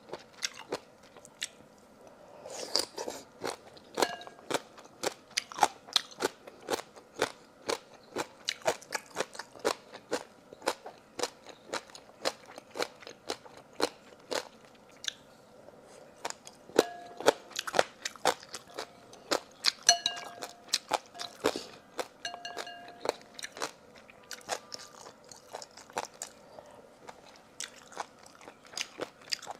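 Close-up eating sounds: crisp bites and crunchy chewing of food in the mouth, a rapid irregular run of sharp crunches.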